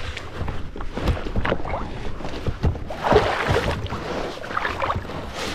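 An Advanced Elements inflatable kayak being launched and climbed into at the water's edge: irregular knocks and bumps of the hull and paddle, with splashing and a louder rushing noise about three seconds in.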